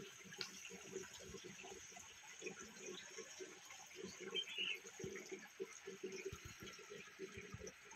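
Shallow river water faintly trickling and burbling, a steady run of small irregular gurgles.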